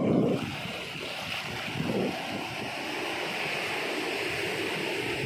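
Sea surf breaking and washing up a sandy beach: a steady hiss of foaming water with low swells as waves come in.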